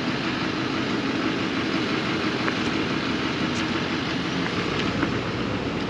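Steady rushing of wind over the microphone, mixed with the running of a nearby vehicle engine.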